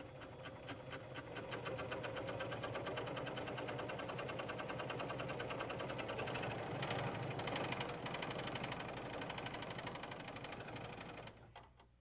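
Husqvarna Huskylock 936 serger sewing a tri-cover stitch: the machine's rapid, even stitching run builds up over the first second or two, holds steady, and stops about eleven seconds in.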